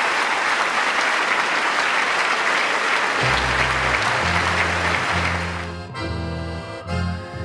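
Audience applauding, the clapping dying away about six seconds in, while accordion music with low held bass notes comes in about three seconds in and carries on alone.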